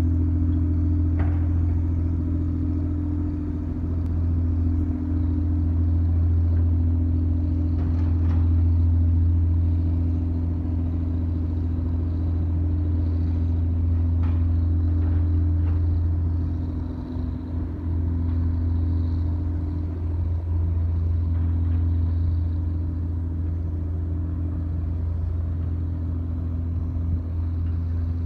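Diesel engine of a small towboat pulling a sediment barge, a steady low drone that eases slightly about two-thirds of the way through, with a few faint knocks over it.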